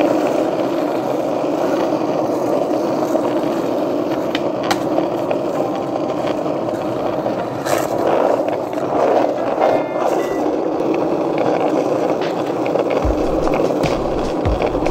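Skateboard wheels rolling steadily over asphalt at speed, with a few sharp clicks along the way. Near the end a low thudding music beat comes in.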